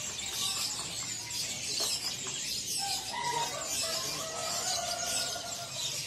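A chorus of many caged birds chirping and twittering at once, with a few longer whistled notes in the middle.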